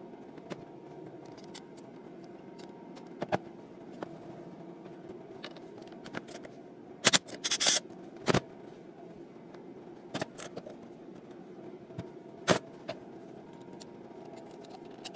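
Metal parts of a CAV DPA injection pump clinking and knocking as they are handled and taken apart: a handful of sharp knocks spread through, with a brief rasping rattle about halfway, over a steady background hum.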